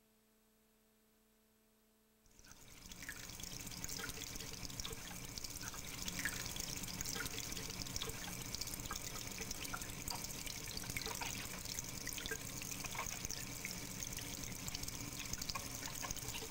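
Near silence for about two seconds, then water trickling and dripping fades in and runs on steadily, with many small drips and splashes in it.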